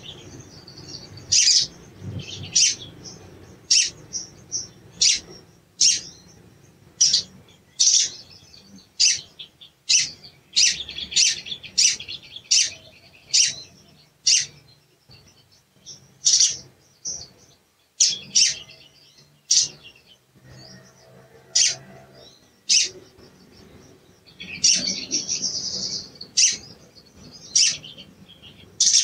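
Male olive-backed sunbird (sogon) giving sharp, high "cuit" chirps, about one a second, broken by a few quick twittering runs. These are agitated calls.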